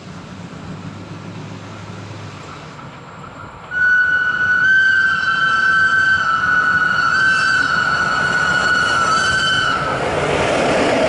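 Model trains running on the layout, first as a low rumble. About four seconds in, a loud, high-pitched squeal starts, holding with small steps in pitch for about six seconds, like wheels squealing through a curve. It then gives way to louder rolling noise.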